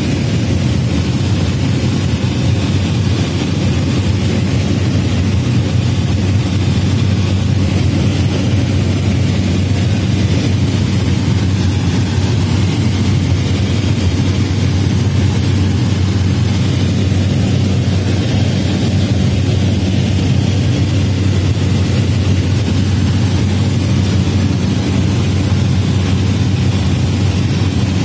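Steady, loud drone of a light propeller aircraft's engine and airflow heard inside the cabin in level flight.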